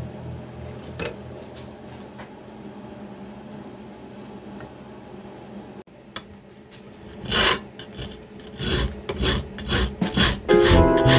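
Hand file rasping along the edge of a 16-gauge copper bridge plate clamped in a vise, in strokes about two to three a second, starting after a quieter stretch about seven seconds in. Music comes in near the end.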